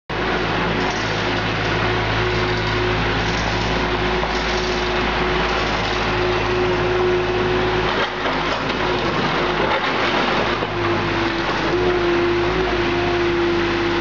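Engine of an SHK CL25W wheeled mini skid steer loader running steadily as the machine drives and pushes soil, with a steady tone over the engine noise and a short dip about eight seconds in.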